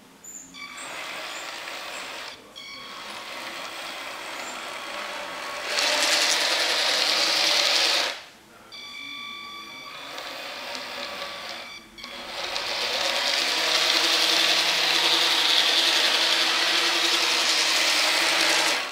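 The small electric motors and gear drives of an H0-scale battery-powered rail car (two NWSL Stanton drives) running along the track under remote throttle. At the slower settings there is a steady high whine. The sound gets much louder at higher speed about six seconds in, drops out briefly around eight and twelve seconds, runs loud again from about twelve seconds, and stops suddenly near the end.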